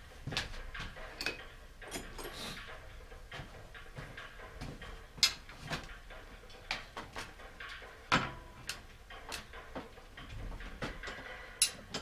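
Irregular clicks, taps and knocks of hands and tools working on a bicycle clamped in a repair stand, with a few sharper knocks about five, eight and eleven seconds in.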